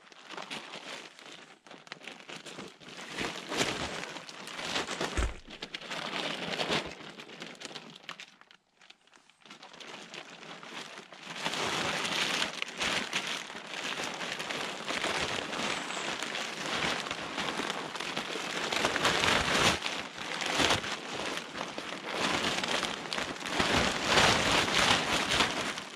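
A large green plastic tarp being unfolded and shaken out by hand, its sheet rustling and crackling. Quieter and patchy for the first ten seconds, with a brief lull about nine seconds in, then louder and continuous as the sheet is lifted and spread.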